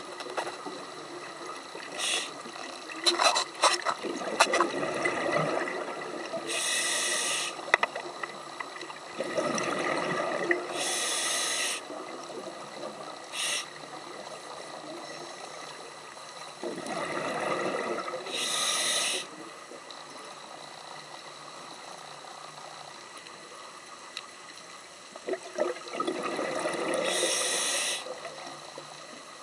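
Scuba diver breathing through a regulator underwater: bubbling exhalations, each followed by a short hiss of inhaled air, about four breaths, one roughly every eight seconds.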